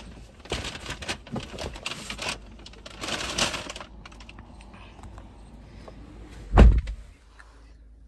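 Clicking and rustling handling noises, a short burst of scraping noise a little past three seconds, then one heavy thump near the end.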